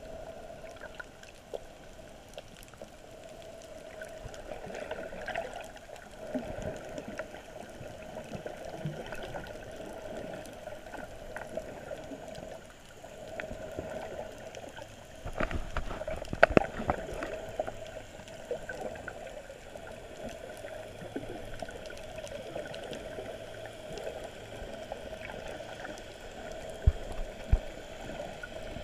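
Muffled underwater sound picked up by a camera in its waterproof housing while snorkeling over a reef: a steady hum with scattered small clicks. A louder stretch of knocks comes about halfway through, and two sharp knocks near the end.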